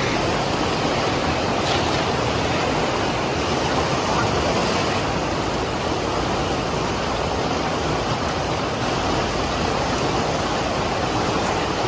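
The Marsyangdi river's fast water rushing in a steady, unbroken noise.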